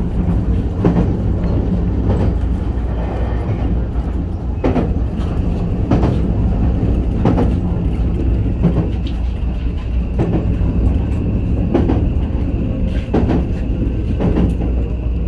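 JR West 521-series electric train running at speed, heard from inside its rear cab: a steady low rumble, with the wheels clicking over rail joints every second or two. A faint high steady tone comes in about halfway through.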